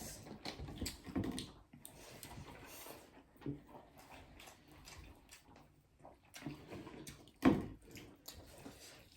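Close mouth sounds of eating by hand: soft chewing and lip smacks, with a few louder smacks, the loudest near the end.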